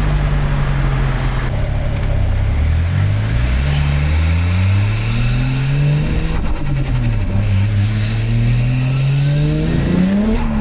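Turbocharged Toyota 1JZ straight-six accelerating hard, its note climbing twice with a rising turbo whistle. Between the two climbs, about six and a half seconds in, there is a rapid turbo flutter (compressor surge chatter) as the throttle is lifted.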